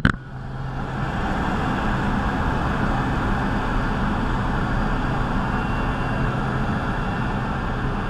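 Steady drone of a small jump plane's propeller engine heard from inside the cabin in flight, a constant low hum under a rushing noise.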